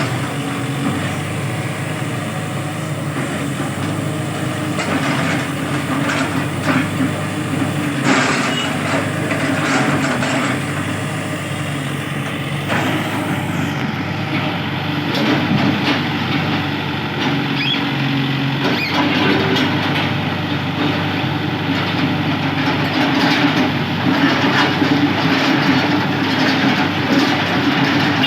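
Heavy road-construction machinery's diesel engine running steadily, with irregular metallic clanks and knocks.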